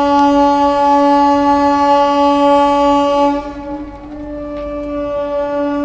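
Train horn sounding one long steady blast at a single pitch. About three seconds in it drops sharply in loudness and carries on more faintly.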